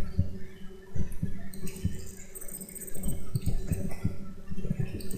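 Irregular soft clicks and knocks from a computer mouse being moved and clicked on a desk, over a steady low electrical hum.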